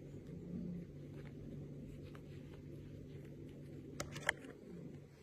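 Faint soft rustling as fingers stroke a small parrot on a terry towel, over a steady low hum. Two sharp clicks come about four seconds in, as the bird springs up.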